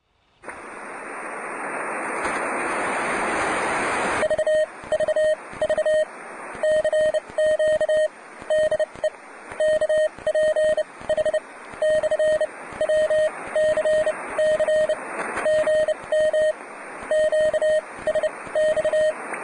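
Radio receiver hiss, then from about four seconds in a Morse code (CW) signal: a single steady tone keyed on and off in dots and dashes over the background noise.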